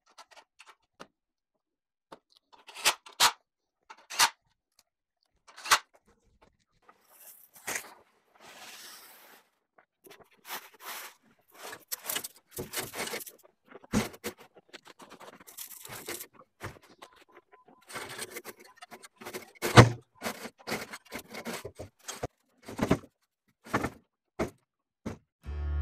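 Scattered clicks, knocks and scrapes of metal hardware being handled as a skid-steer sweeper's poly brush core is fitted back onto its hub, growing busier in the second half with one louder knock a little past the middle. A couple of seconds of rustling noise about eight seconds in.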